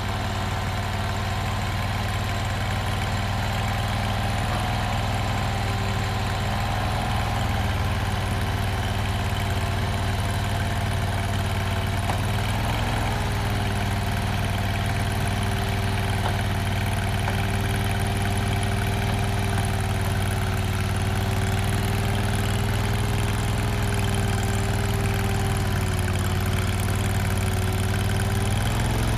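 Mini skid steer's engine running steadily at constant throttle, its pitch wavering slightly now and then. The sound comes in abruptly at the start.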